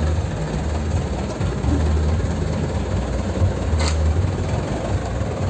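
Engine of a heavily lowered pickup truck running at low revs as it creeps along, a deep rumble that swells and eases every second or two. A single short tick sounds about four seconds in.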